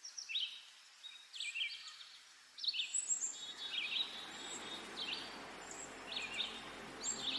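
A bird chirping again and again, short high calls about once a second. A low steady drone joins underneath about three and a half seconds in.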